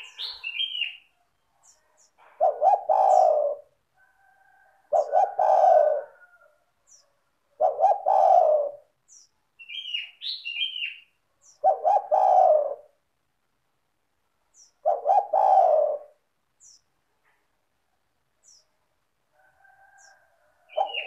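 Spotted dove singing its cooing song, a low phrase of about a second repeated every three seconds or so. A higher chirping call from another bird comes at the start and again about ten seconds in.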